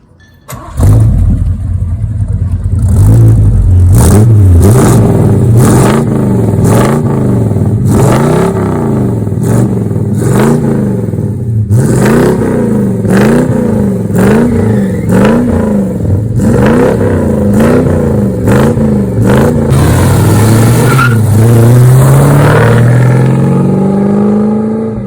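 Loud V8 engine of a Dodge Charger R/T, revved up and down about once a second, its pitch rising and falling repeatedly. Near the end it pulls away with a steady rise in pitch. Scattered sharp clicks and pops ride over the engine.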